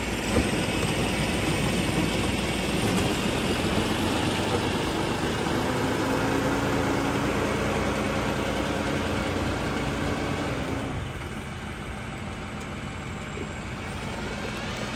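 New Holland Workmaster 75 tractor's diesel engine running steadily as the tractor creeps past on a gravel driveway with its loader bucket down. The sound eases off a little about eleven seconds in.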